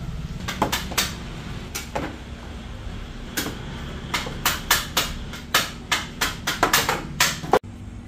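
Dough balls being set down by hand on metal baking trays: irregular sharp taps and knocks on the metal, coming faster, about two or three a second, in the second half, over a steady low hum.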